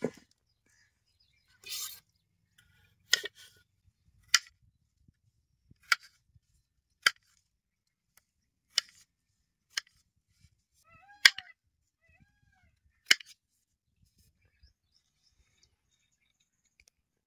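A series of sharp clicks or knocks, about ten of them, roughly one every second or so, with a brief chirp about eleven seconds in.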